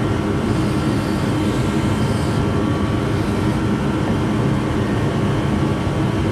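A steady low machine drone, even in level throughout. Two faint short hisses come a couple of seconds in.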